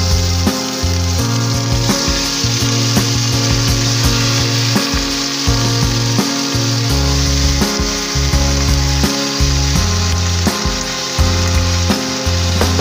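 Chicken pieces sizzling steadily as they fry in hot oil in a pot.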